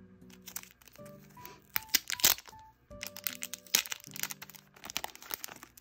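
Background music with steady held notes, over sharp crinkling and crackling of packaging being handled, loudest about two seconds in.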